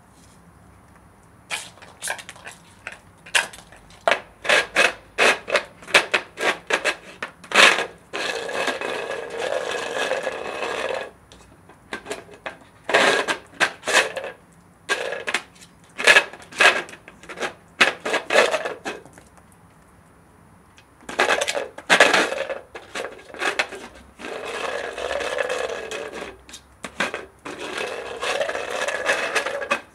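A ball knocked about, bitten and pushed across a gritty concrete floor by a Doberman puppy. Runs of sharp clicks and knocks alternate with a few seconds at a time of steady rolling, scraping noise.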